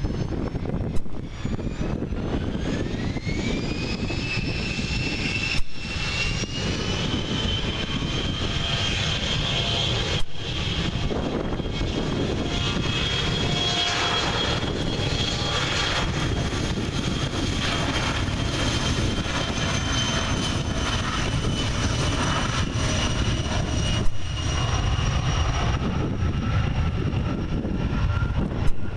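Twin tail-mounted turbofans of a Bombardier CRJ regional jet spooling up for takeoff: a whine rises over the first few seconds, then holds high and steady over a heavy rumble as the jet starts its roll.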